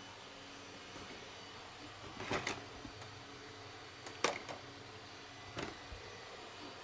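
Handling noise: three short rustles of objects being picked up and moved, the middle one loudest, over a faint steady room hum.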